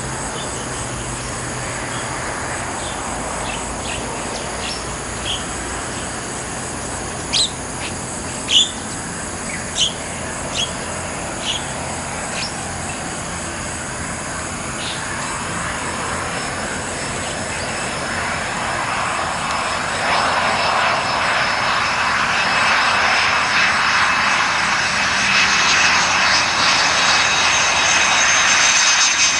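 Birds chirp a handful of times in the first half over a steady background hiss. From about the middle, the Pratt & Whitney JT8D turbofans of an approaching Boeing 737-200 on final approach grow steadily louder, a rushing noise with steady high whines.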